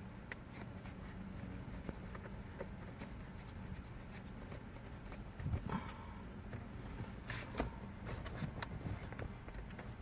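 Scattered clicks and knocks of plastic interior trim being handled and fitted back into a car's dash, with a sharper pair of knocks a little past halfway, over a steady low hum.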